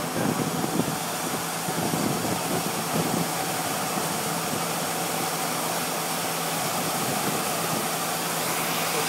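A fire engine's pump running at a steady speed, a constant hum under a broad rushing hiss, with some uneven rumbling in the first few seconds.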